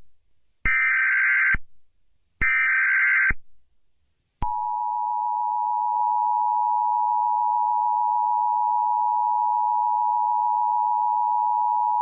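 Emergency Alert System alert opening: two bursts of SAME header data tones, about a second each, then, about four seconds in, the steady two-tone EAS attention signal starts and holds. Together they mark the start of an EAS severe thunderstorm warning broadcast.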